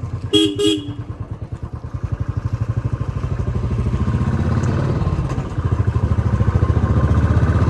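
Royal Enfield Classic 350's single-cylinder engine thumping steadily while under way, growing louder about halfway through as it pulls. A quick double beep sounds near the start.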